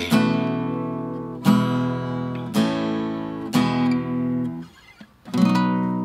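Acoustic guitar playing the closing chords of a song: five chords strummed about a second apart, each left to ring and fade, with a brief pause before the last.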